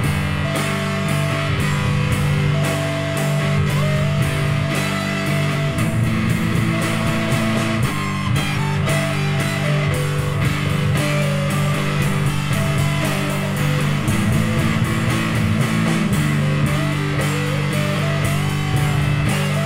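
Instrumental psychedelic rock jam: electric guitars hold a low droning chord under a lead line with sliding notes, over steady drums.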